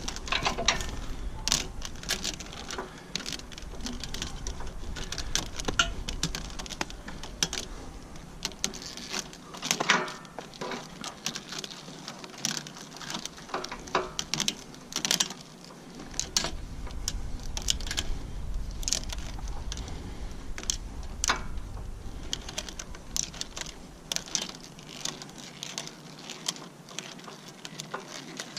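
Irregular light clicks, rattles and rustling of hands wrapping hydraulic hoses and couplers in plastic spiral wrap.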